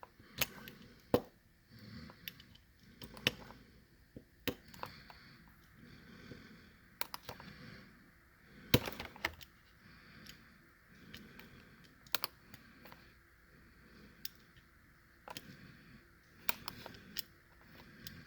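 Irregular small clicks and taps of a 1/64-scale diecast toy car being handled and adjusted by hand, with a louder knock about nine seconds in.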